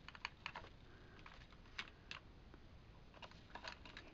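Single eyeshadow compacts clicking and clattering against each other and the box as they are picked up and set down, in scattered bursts of light clicks.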